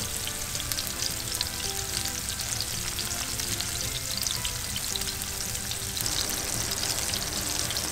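Tuna chunks sizzling in hot oil in a frying pan as they are turned over, a steady hiss full of small crackles and spatters.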